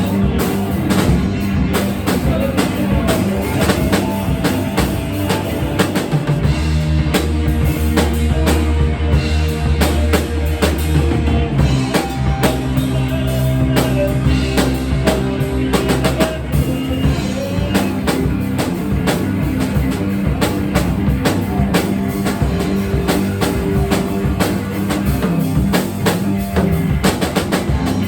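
Rock band playing, with a drum kit keeping a steady beat over bass and sustained chords.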